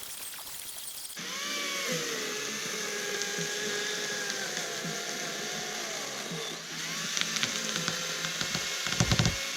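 Small battery-powered mini chainsaw's electric motor starts about a second in and runs with a high whine whose pitch dips and recovers, as when the chain bites into wood. Crackling clicks come near the end, with a few low thumps at the very end.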